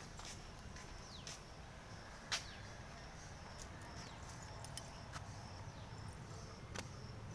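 Faint outdoor ambience: a steady low rumble, scattered sharp clicks with the loudest about two seconds in, and a few faint, quick high chirps that slide down in pitch.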